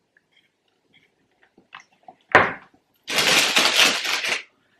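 A single thump about two seconds in, then a little over a second of loud crinkling rustle from a paper takeaway bag as a small dip pot is pulled out of it.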